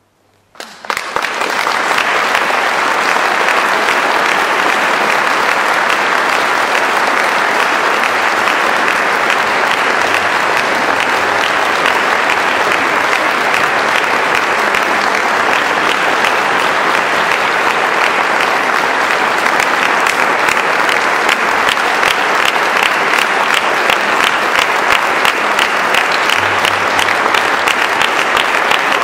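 Audience applause breaks out about half a second in and holds steady and full, turning more rhythmic in the last several seconds.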